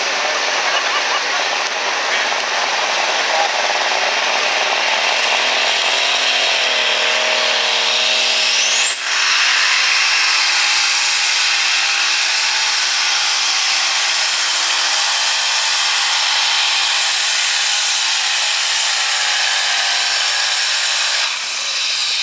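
A light super class pulling tractor's engine running flat out under load as it drags the weight sled down the track. There is a brief rising whine about a third of the way in, and the level drops a little just before the end.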